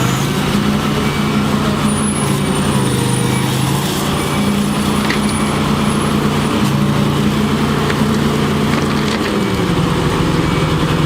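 Heavy machine's diesel engine running loud and steady, its pitch stepping up and down a few times. A faint high squeal comes and goes from about two seconds in.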